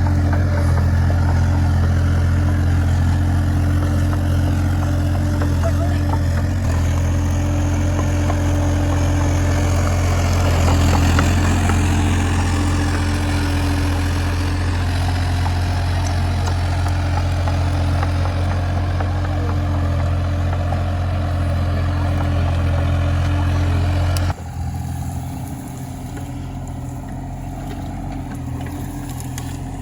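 Kubota U30 mini excavator's diesel engine running at a steady speed. About 24 seconds in, the sound suddenly drops and becomes quieter.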